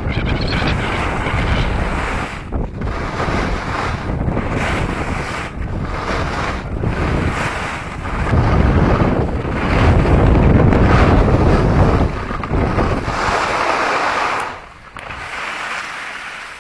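Wind rushing over a camera microphone during a ski descent, mixed with the skis hissing and scraping over groomed snow. The noise rises and falls with short dips every second or so, is loudest a little past the middle, and drops away sharply near the end as the skier slows.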